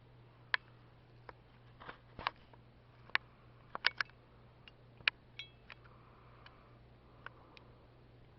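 A dozen or so short, sharp clicks and ticks at irregular intervals, clustered around the middle, over a steady low hum.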